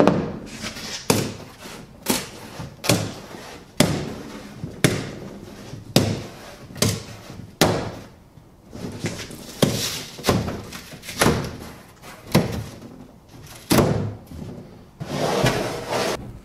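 Utility knife being drawn repeatedly along a metal straightedge to score foam tile backer board: a run of short, sharp scraping strokes with knocks, about one a second.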